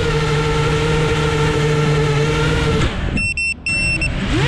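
FPV quadcopter's brushless motors humming at a steady throttle, then the throttle cuts about three seconds in, leaving only a few thin high whines. Near the end the motors pick up again, their pitch swooping up and down.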